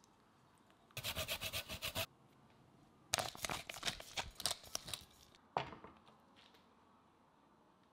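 Pepper mill grinding black pepper: rapid grating crunches in two runs, about a second and then about two seconds long, with one last short twist a little later.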